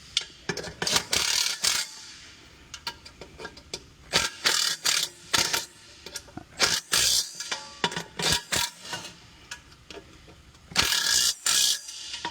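Hand ratchet with an Allen bit working the bolts of a three-piece racing wheel: bursts of metallic ratcheting about a second long, with scattered clicks of metal tools and parts between them.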